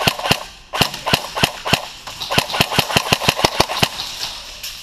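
Airsoft guns firing in quick strings of sharp shots, several a second, with a short pause about two seconds in.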